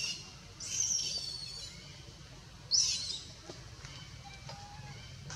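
Three short high-pitched animal calls, spaced about a second apart: the first rises, the second is held for about a second, the third is brief and sharp.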